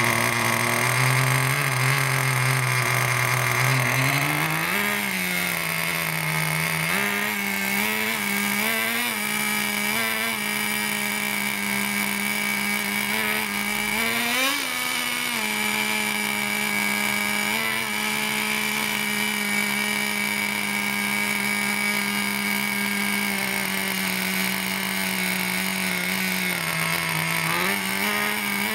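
Small nitro engine of a radio-controlled monster truck running steadily while its carburettor is adjusted with a screwdriver. Its pitch steps up a few seconds in, blips briefly several times, and dips near the end.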